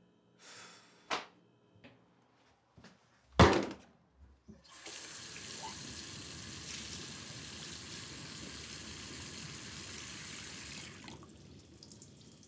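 A few light knocks and one sharp, loud knock, then a sink faucet running water steadily into the basin for about six seconds before it is turned off.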